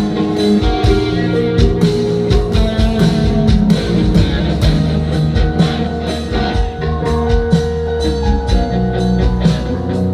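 Live band playing an instrumental: sustained keyboard and guitar notes over bass, with a steady beat of drum pad and hand-percussion strikes.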